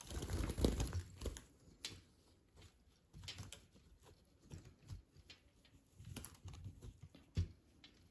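Fabric cage cover rustling as it is pulled up and fitted over a small wire birdcage, with light clicks and knocks of the cage being handled. One sharper knock comes near the end.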